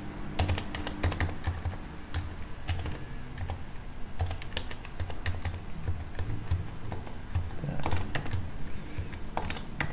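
Computer keyboard typing: a run of irregular, quick keystroke clicks as code is edited, with a slightly louder cluster of strokes about eight seconds in.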